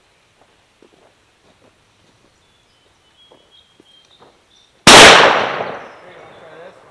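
A single rifle shot from an M1A in .308 Winchester (7.62×51 mm) about five seconds in, very loud, its report echoing away over about a second and a half. Faint scattered clicks come before it.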